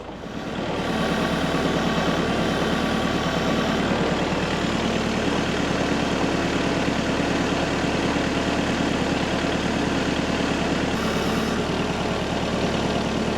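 Engine of a heavy machine running steadily, likely a diesel-powered skid steer or tractor, coming up in level over the first second and then holding even.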